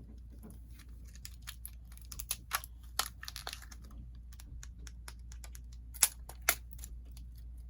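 Plastic toy wrapping being handled and picked open by hand: scattered small crinkles and clicks, busier about three seconds in, with two louder sharp clicks about six seconds in.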